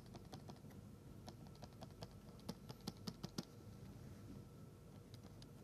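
Faint, irregular clicks and taps, a few scattered and a quick run of louder ones around the middle, over a faint steady hum.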